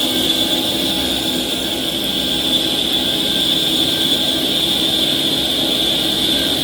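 CNC machine cutting a GCD500 cast iron tire mold segment: a steady high whine from the cut over the machine's running hum.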